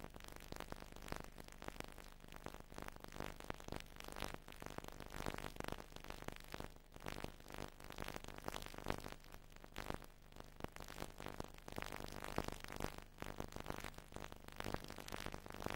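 Faint static: a crackling hiss over a low steady hum, the noise of a blank recording with no programme sound.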